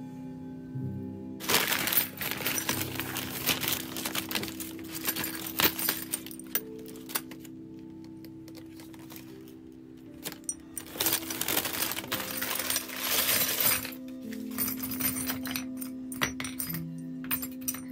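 Small zinc-plated metal angle and straight joiner brackets clinking and jangling against each other and the wood in several bursts as they are handled, over background music with sustained notes.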